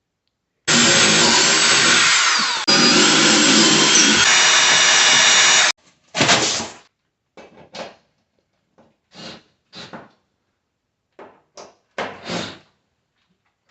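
Power drill running, mounting a microwave. It starts with a long run of about five seconds with a brief stop partway through, then comes a series of short bursts.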